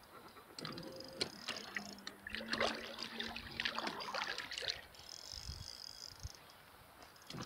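Water splashing and trickling at the side of a pontoon boat, with many irregular small clicks and knocks from about half a second in until nearly five seconds in, and a low steady hum for about two seconds in the middle.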